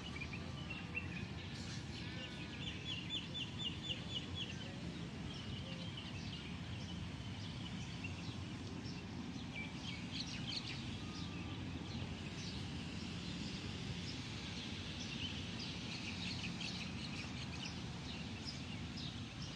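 Small birds chirping and twittering again and again, with a quick run of repeated trilled notes a few seconds in, over a steady low outdoor background rumble.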